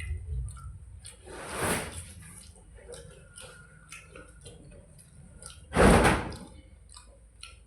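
Close-up eating of panta bhat, rice soaked in water: wet squishing and chewing with many small clicks. Two louder, longer noisy sounds come about two seconds in and about six seconds in, the second the loudest.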